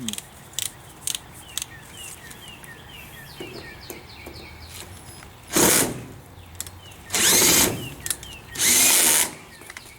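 Power drill run in three short bursts, each under a second long, in the second half, driving the hinge screws. Before the bursts there are a few small clicks.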